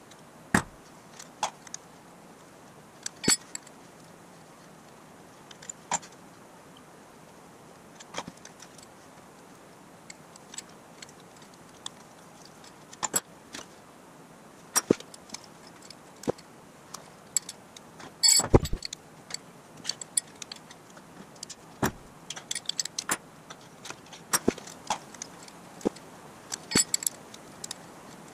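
Steel hand tools clinking and knocking against engine parts during an engine teardown: scattered short metallic clicks and clanks, with a louder clatter about two-thirds of the way through.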